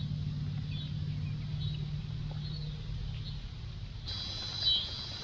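A bird chirping over and over, short high calls roughly once a second, loudest near the end. Under it a low steady hum runs for about the first three seconds, then stops.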